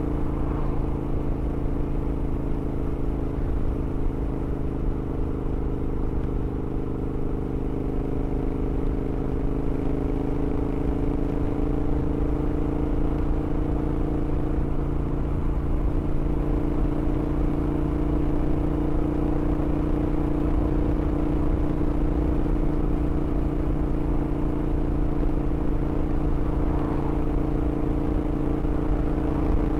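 Big-bore 865cc Royal Enfield Interceptor parallel-twin running through high-flow headers and mufflers, holding a near-steady engine speed with its pitch drifting only slightly, over a heavy low rumble.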